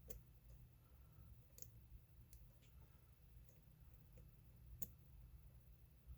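Lock pick working the pin tumblers of an old Ace solid brass padlock: about half a dozen faint, irregularly spaced small clicks over a low steady hum.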